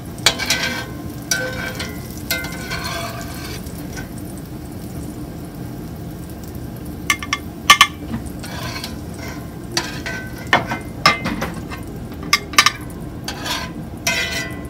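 Oil frying in a cast iron skillet with a steady sizzle, while a slotted metal spatula scrapes and taps against the pan and a glass dish as the onions are lifted out. Sharp clinks come in clusters: once near the start, again about halfway, and several times in the last few seconds.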